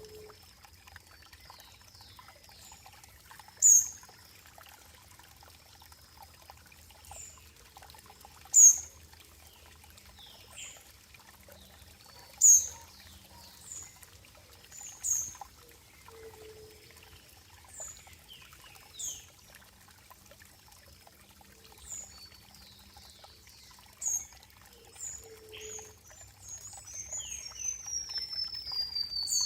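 Birds chirping: short sharp high chirps every two to four seconds, with a quick falling run of notes near the end. Underneath is a faint steady trickle of running water.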